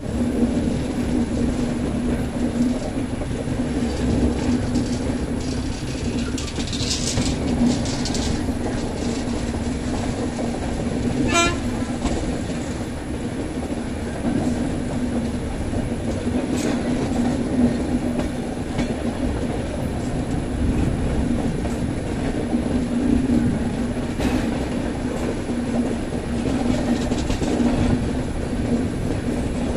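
Express passenger train running around a curve, heard from an open coach door: a steady rumble of wheels on the rails with a low hum, and occasional clacks over the rail joints.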